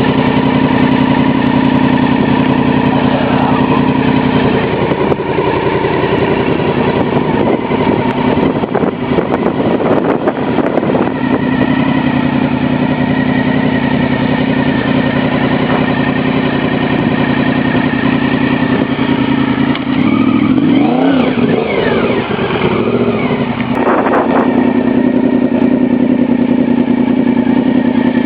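Honda VFR750F RC36's V4 engine running at a steady pitch, its note swinging up and down for a few seconds about two-thirds of the way in.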